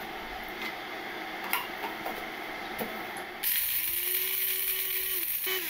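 Electric blade coffee grinder, run by pressing its lid down, whirring steadily as it grinds coffee beans for about two seconds, starting suddenly and cutting off near the end. Before it, a few soft taps as a paper filter is set into a pour-over dripper.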